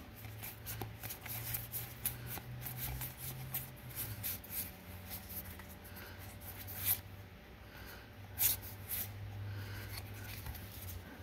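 Magic: The Gathering trading cards being handled and flipped through one at a time, with scattered light clicks and slides of card stock over a faint low hum.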